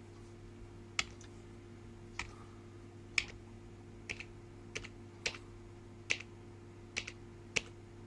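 Single computer keyboard keypresses, about nine of them spaced irregularly roughly once a second, over a faint steady low hum.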